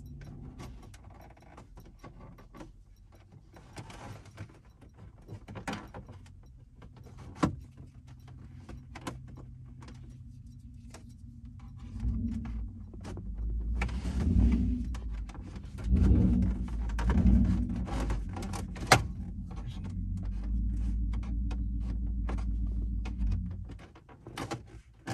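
Scattered clicks, rattles and rustling of hands working around a car's driver seat and dashboard, with keys jingling. About halfway through a low rumble comes in with a few louder swells, then stops shortly before the end.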